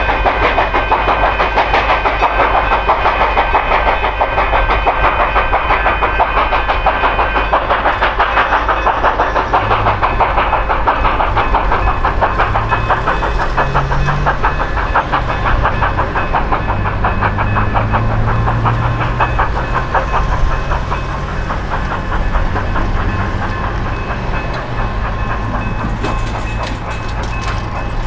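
Steam train running, with a fast, even rhythmic beat that eases somewhat in the second half.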